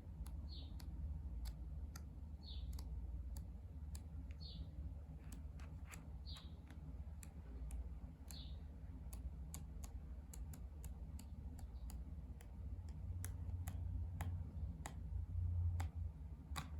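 Glossy pages of a K-pop album photo book being flipped quickly, making a string of light, irregular paper clicks and flaps. A short high chirp repeats about every two seconds in the first half.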